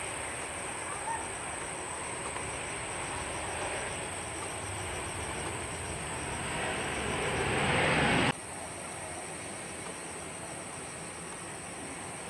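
Boeing 737 airliner's jet engines on the landing roll just after touchdown: a steady rushing noise that swells over about two seconds and then cuts off abruptly about eight seconds in.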